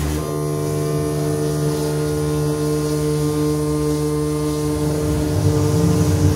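Modular synthesizer drone: several layered steady tones held together. About five seconds in, the low end grows louder and rougher.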